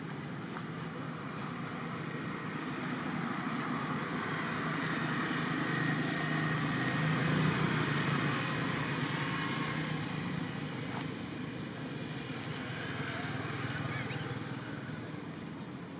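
A motor vehicle passing by, its engine hum and road noise swelling to a peak about halfway through and then fading away.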